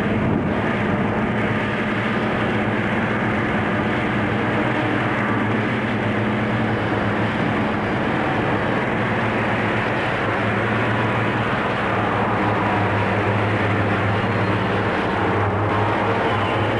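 Three EMD SD45 diesel-electric locomotives, each with a 20-cylinder engine, working hard as they pull a heavy freight up a steep grade: a steady engine sound with a low hum.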